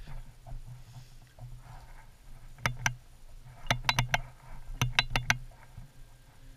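Hard clicks and knocks of a caver moving over rock in a lava tube: a pair nearly three seconds in, then two quick runs of four, over a low steady rumble.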